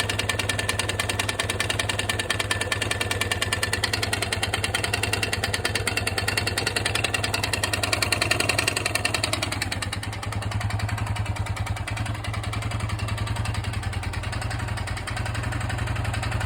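Yamaha XT/TT600 air-cooled single-cylinder four-stroke engine idling with an even beat of firing pulses. About ten seconds in it settles slightly quieter.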